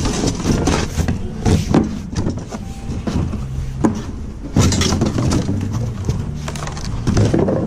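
Large cardboard box being opened by hand: its flaps are pulled open and folded back, with repeated sharp crackling, scraping and flapping of cardboard, over background piano music.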